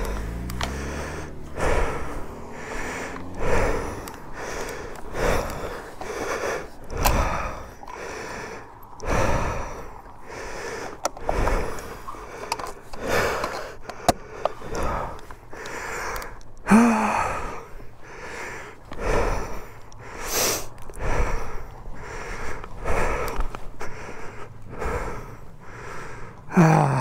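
A person breathing hard and fast close to the microphone, more than one breath a second, with a short grunt about 17 seconds in and another near the end.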